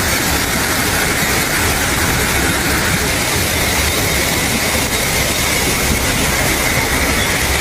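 Rushing floodwater making a loud, steady roar, unbroken and even throughout.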